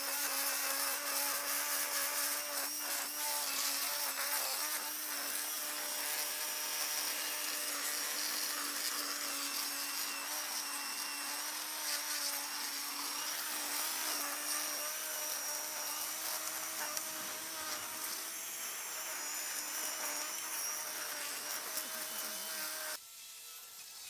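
Ryobi 40V cordless string trimmer running steadily with a held motor whine, its line cutting grass and weeds. The sound drops noticeably near the end.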